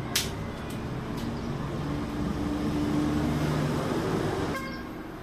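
Engine hum and hiss of a passing vehicle, swelling and then fading, with one sharp click just after the start.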